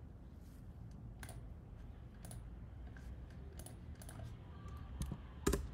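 Computer keyboard keys pressed one at a time, about seven separate clicks spread over a few seconds, the sharpest and loudest near the end.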